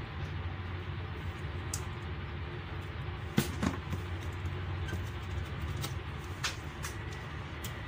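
A few sharp clicks and light knocks of hands handling the wiring and plug connectors inside an opened inverter welding machine, the loudest about three and a half seconds in, followed closely by a second. A steady low background rumble runs underneath.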